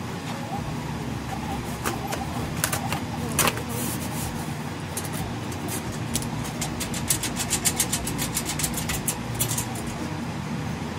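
Steady low traffic rumble with a few sharp knocks, then a quick run of sharp clicks for several seconds.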